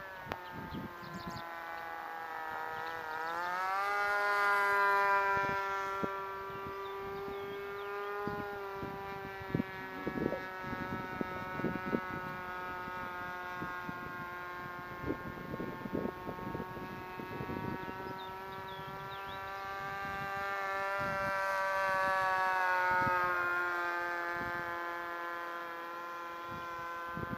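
O.S. 35 AX two-stroke glow engine of a radio-control model airplane in flight, a steady high-pitched drone. It swells louder twice as the plane passes closer, its pitch rising a little before the first pass and dropping slightly as each pass goes by.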